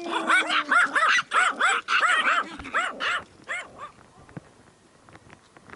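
Several dogs barking and yapping in rapid, overlapping barks that die away about three and a half seconds in.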